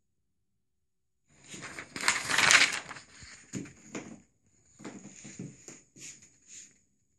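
A sheet of paper crinkling and rustling as it is handled, in irregular bursts that start about a second in and are loudest about two seconds in, breaking into shorter rustles near the end.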